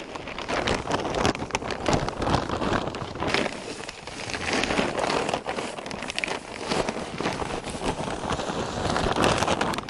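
Dry straw rustling and crackling as it is pushed by hand into a woven plastic sack, with the sack and the plastic ground sheet crinkling; an uneven, continuous crackle of many small clicks.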